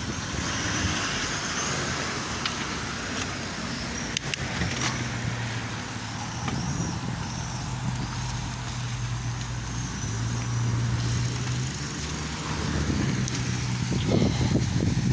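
Street traffic: car engines running, with a steady low hum through the middle, and wind buffeting the microphone near the start and again near the end while the bike is moving.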